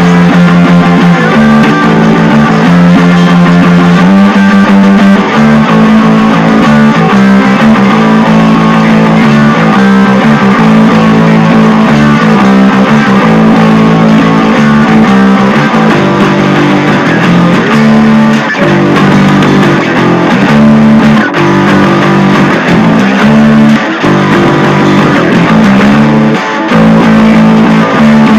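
Loud instrumental music led by guitar, with held bass notes that shift every second or two under a dense layer of chords.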